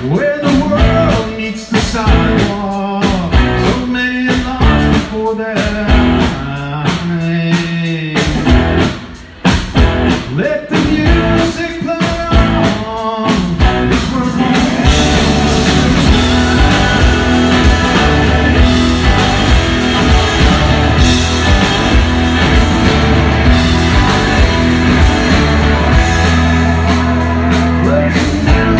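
Rock band playing live, with electric guitars, electric bass and drums and a man singing. For about the first half the band plays choppy stop-start accents with short gaps; about halfway through it breaks into a full, continuous groove with a heavy bass.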